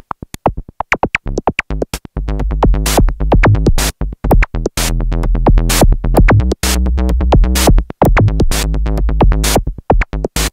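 Korg Monologue monophonic analog synthesizer playing a sequenced bass line over a drum machine beat. The first couple of seconds hold only sparse hits and short notes, then a steady low bass groove comes in.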